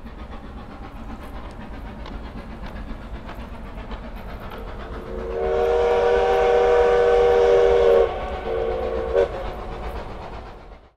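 A train rolling with a steady rumble and clicking of wheels over rail joints. About five seconds in it sounds a long multi-note blast, followed by a shorter one, and then the sound fades away.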